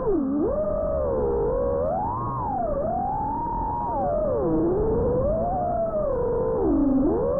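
FPV racing quadcopter's motors whining, several close tones swooping up and down in pitch as the throttle changes, dipping low about half a second in and again near the end. The sound is muffled, with no treble.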